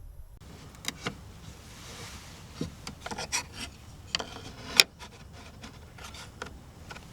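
Objects being handled at close range: irregular rubbing and scraping with a series of short clicks, and one sharp click a little under five seconds in.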